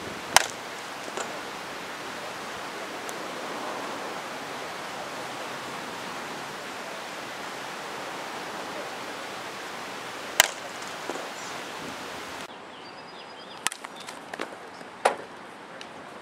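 Softball bat hitting balls off a batting tee: a sharp crack about half a second in and another about ten seconds in, then a few more knocks, the loudest about a second before the end. A steady wind hiss lies under it.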